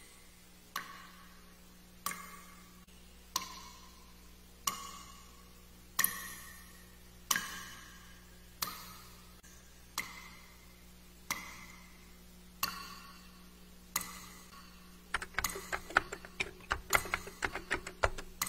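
Slow, even ticking, one sharp tick about every 1.3 seconds, each with a short ringing tail. About 15 seconds in it gives way to a fast, irregular patter of typing keystrokes.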